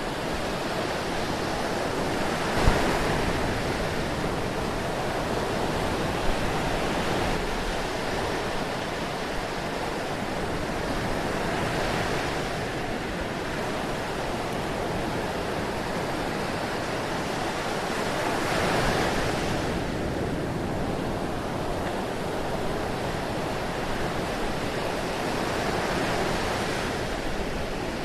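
Ocean surf washing steadily, rising in a swell as a wave breaks about every seven seconds. A brief sharp knock stands out about three seconds in.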